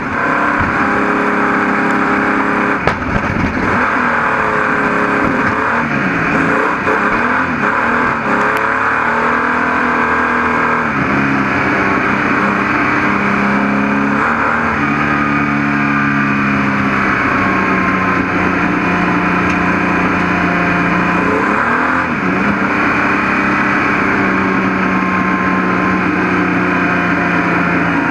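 Speedway stockcar engine heard from inside the car, revving hard, its pitch rising and falling repeatedly as the driver lifts off and accelerates around the dirt oval. There is a single sharp knock about three seconds in.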